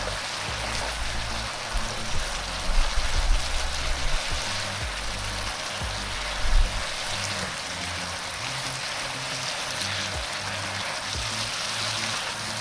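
Shredded cabbage, bean sprouts and carrot sizzling steadily as they are stir-fried in a hot pan, with a few soft knocks of the spatula against the pan in the first half.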